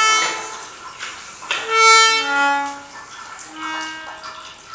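Self-playing reed instruments sounding long held notes that swell and fade, several overlapping into a chord, loudest about two seconds in.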